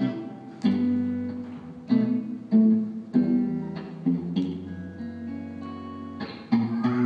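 Instrumental rock band played live, with electric guitar and pedal steel guitar over electric bass, in a quieter passage. Single plucked guitar notes start sharply and ring out one after another over a held bass note.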